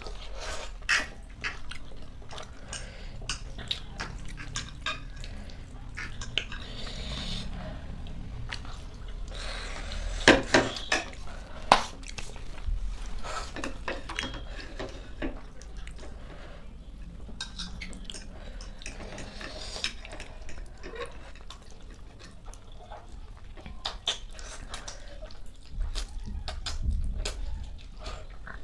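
Two people eating spicy instant noodles: wet slurping and chewing, with forks clicking against plates. The sharpest clicks come about ten to twelve seconds in.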